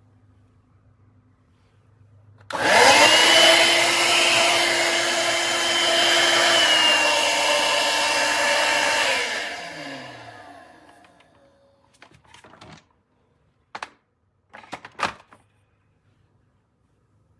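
Cordless stick vacuum motor switching on about two and a half seconds in and running with a steady whine, then spinning down to a stop with a falling pitch. A few short clicks and knocks follow near the end.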